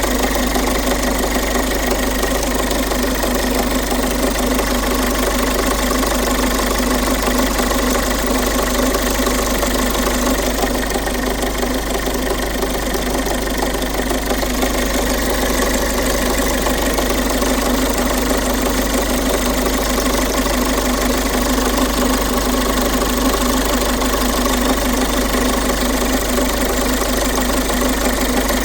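Peugeot 1.5 HDI four-cylinder diesel engine running steadily with an even knock from the timing-chain end. The knock comes from a timing chain stretched by almost a full link, which the fully extended tensioner can no longer keep tight.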